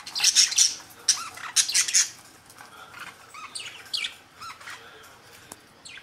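Caged budgerigars squawking and chattering: loud, harsh calls through the first two seconds, then softer, shorter chirps.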